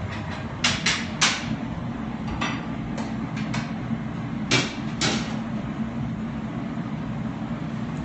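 Steady roar of a glassblowing glory hole furnace. Over it come about eight sharp metallic knocks from steel rods and tools being handled, the loudest about a second in and near five seconds.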